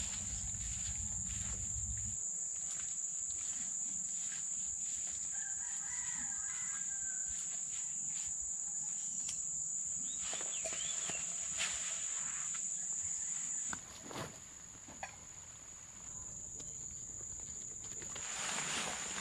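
Steady high-pitched insect drone, with a distant rooster crowing once about six seconds in and scattered light taps. The drone drops away about two-thirds of the way through, and a louder hiss builds near the end.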